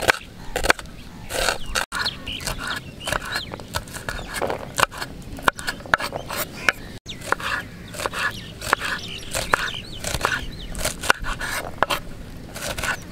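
Kitchen knife chopping red onion and green chillies on a wooden cutting board: quick, irregular blade strikes against the wood.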